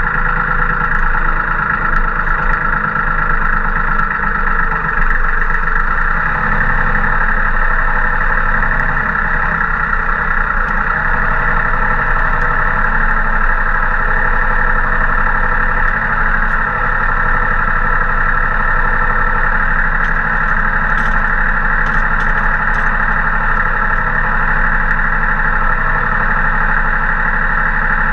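Branson compact tractor's diesel engine running steadily, heard close up from the front loader frame while the loader works.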